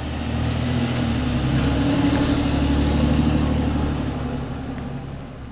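A box delivery truck's engine driving along the street, growing louder to a peak partway through and then fading away as it leaves.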